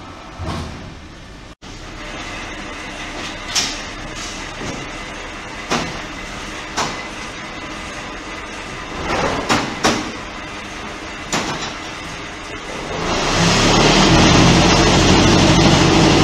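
Automatic concrete block-making machine line running: a steady machine hum broken by scattered metal clanks and knocks. About three-quarters of the way through, a much louder steady buzzing noise starts and holds.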